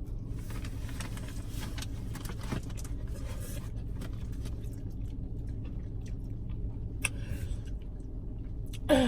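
Steady low rumble of a car running, heard inside the cabin, with soft chewing and a few small clicks of eating.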